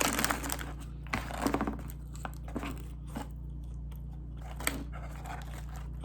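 Close-up mouth sounds of a person eating McDonald's food: chewing and crunching, with a few short crackles scattered through, the busiest right at the start and about a second and a half in.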